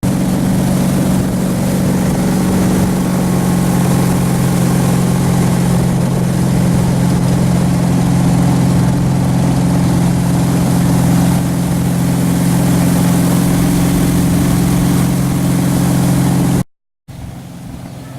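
Ski boat engine running at a steady speed, a loud even drone with a hiss of water over it. Near the end it cuts off abruptly and a quieter steady engine sound follows.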